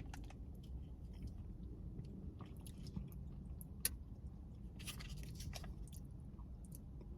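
Quiet mouth sounds of someone sipping a chia seed drink and chewing the seeds, with scattered small clicks and one sharp click about four seconds in.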